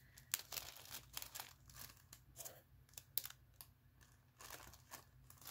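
Clear plastic sleeve of a packaged clear stamp set crinkling faintly as it is handled, in scattered short crackles.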